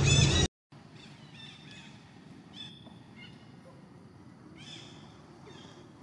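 A louder sound cuts off abruptly about half a second in. After a brief silence, faint outdoor background follows, with short, high chirping animal calls every second or so.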